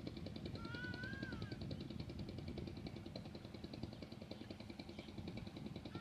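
Rural outdoor ambience: a steady, fast-pulsing insect chirr over a low rumble, with one short rising-then-falling animal call about a second in.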